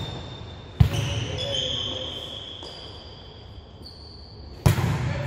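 A volleyball smacking twice, about a second in and near the end, echoing in a large gym, with short high squeaks of sneakers on the hardwood court between the hits.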